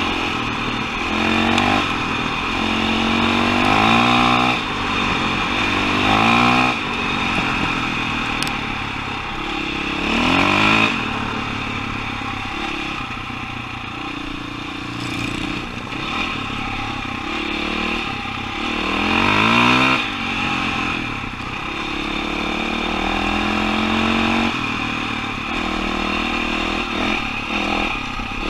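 KTM 525 XCW single-cylinder four-stroke dirt bike engine pulling under way. Its pitch climbs again and again as the throttle is opened, then drops back each time.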